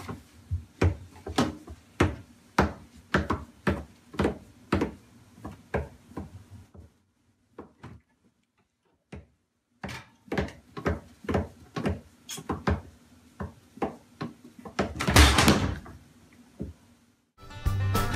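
Rapid, irregular knocking and clattering inside a wooden kitchen cabinet, about two to three knocks a second, with a pause of a few seconds in the middle and a longer, louder scrape near the end. Music starts just before the end.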